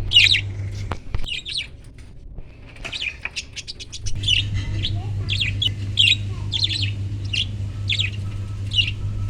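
Small parrots chirping and squawking in many short, sharp calls, over a steady low hum that drops out about a second in and returns about four seconds in.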